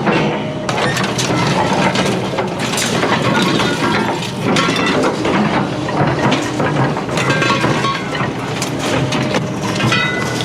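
Scrap metal clattering and crashing as a load is unloaded: a dense, continuous run of knocks, clanks and clinks.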